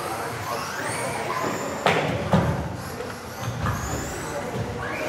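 Several electric RC off-road cars racing, their motors whining up and down in pitch as they accelerate and slow. There are two sharp knocks about two seconds in.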